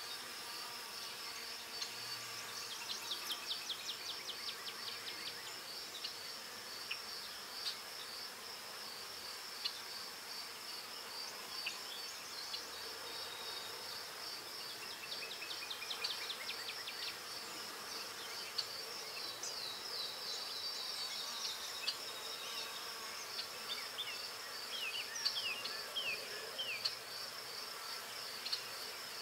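Pencil scratching on paper in short quick strokes, coming in bursts. Behind it runs a steady high, evenly pulsing trill like a cricket's.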